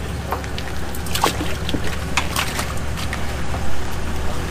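Water splashing and dripping as bass and a wet mesh weigh bag are handled in a tub of water: irregular small splashes and drips over a steady low rumble.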